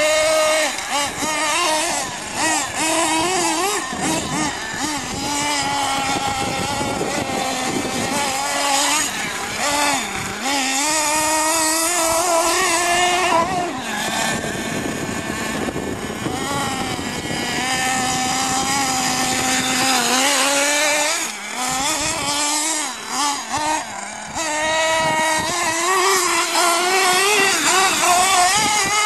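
Radio-controlled off-road truck's small engine buzzing at high revs, its pitch rising and falling over and over as the throttle is worked. It drops away briefly a few times about two-thirds of the way through.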